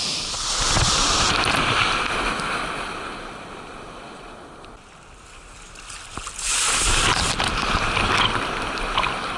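Sea surf on a beach: a wave breaks and washes in about half a second in, dies away, then a second wave crashes about six and a half seconds in and slowly fades.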